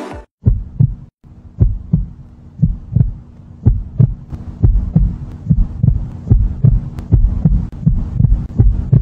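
Heartbeat sound effect: paired low thumps, a steady lub-dub about once a second, over a low steady hum.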